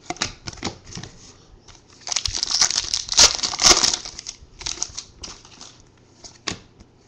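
Trading cards and plastic packaging being handled: light clicks and rustles, with a louder stretch of plastic crinkling from about two to four seconds in.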